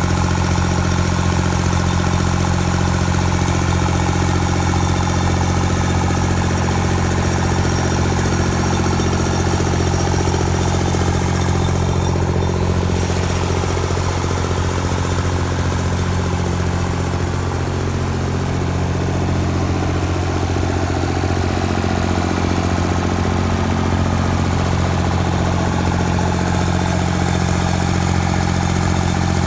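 Carlton 7015TRX stump grinder's 66 hp Deutz turbo diesel engine running steadily.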